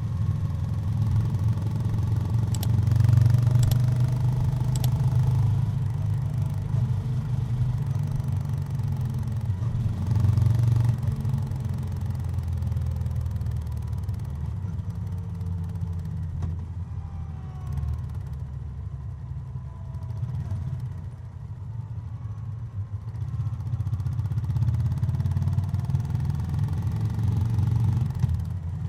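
Honda GB350's air-cooled single-cylinder engine running on the move, louder on the throttle a few seconds in and again about ten seconds in, easing off past the middle and building again near the end. A few brief clicks about three to five seconds in.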